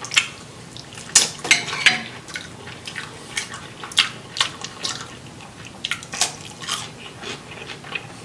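Close-up wet chewing and lip-smacking while eating rice and shrimp: irregular sharp smacks and clicks, a cluster of loud ones a second or two in.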